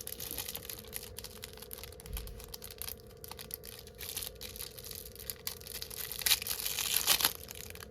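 Packaging crinkling and rustling as small craft supplies are handled and unwrapped, with scattered clicks and a louder spell of crinkling about six to seven seconds in.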